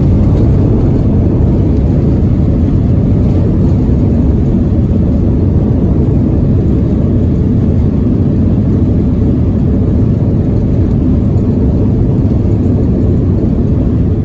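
Loud, steady low rumble inside an airliner's cabin during the landing rollout: the engines and the wheels on the runway as the plane brakes with its spoilers up.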